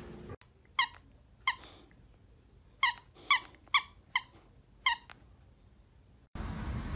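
A squeaker inside a plush toy squeaking seven times in short, uneven squeezes as a boxer bites down on it.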